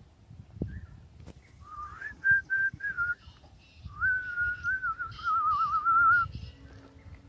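A person whistling a short tune: a quick run of four notes, then a long held note that wavers near the end.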